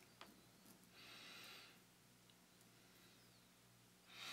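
Near silence: faint room tone with a low hum, a faint click just after the start, and two soft breaths, one about a second in and one near the end.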